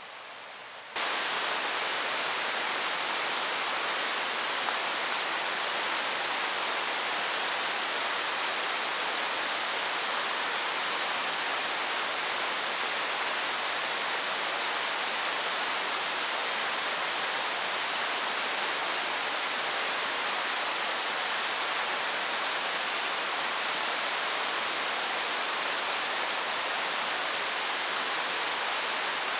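Steady, even rushing noise that cuts in abruptly about a second in and holds unchanged.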